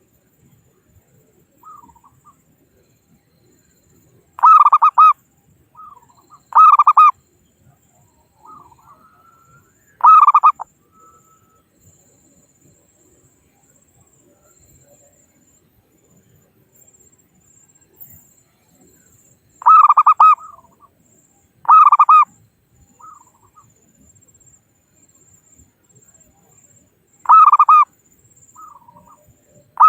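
Zebra dove (perkutut) cooing: six loud, rapidly pulsed cooing phrases of about half a second each, spaced irregularly with long pauses, and softer short notes in between.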